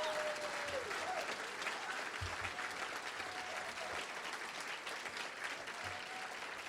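Banquet audience applauding, with a few voices calling out near the start, then slowly fading.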